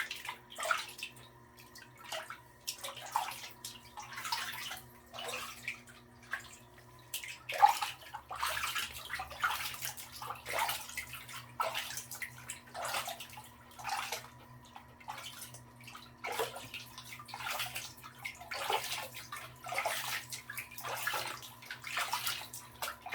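Bathwater in a small tub splashing and sloshing in irregular short bursts, about one a second, over a faint steady hum.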